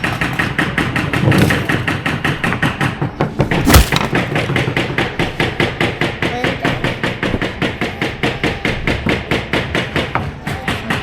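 Hammer driving nails into a small wooden kit in quick, even taps, with one heavier blow about four seconds in.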